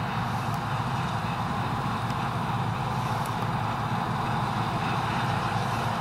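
Claas Lexion 480 combine harvester running steadily at work, harvesting and unloading grain, with a Ford New Holland 8970 tractor pulling a chaser bin alongside: a constant heavy drone of engines and threshing machinery.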